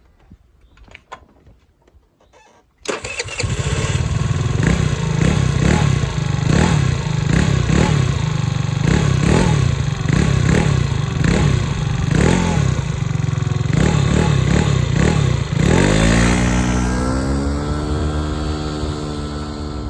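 Rex RS 450/460 scooter's GY6 139QMB 50cc four-stroke single-cylinder engine starts about three seconds in, then is revved in quick repeated throttle blips. From about sixteen seconds the revs fall away and the engine settles toward idle.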